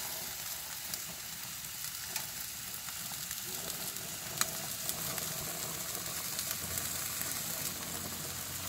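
Chicken drumsticks sizzling on a barbecue grill: a steady sizzle with a few faint pops.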